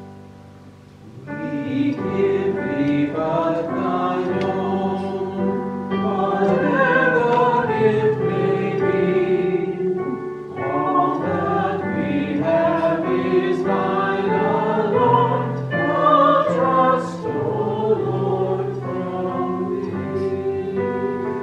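Singing with piano accompaniment: held piano notes, then a slow sung melody with vibrato comes in about a second in and carries on with a brief pause midway.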